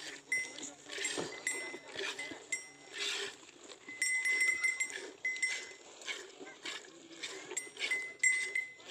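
Livestock neck bells jingling on and off in short repeated rings as the animals move.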